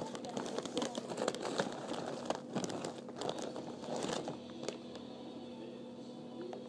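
Close, irregular crinkling and crunching crackles that thin out after about four seconds, over a steady low hum.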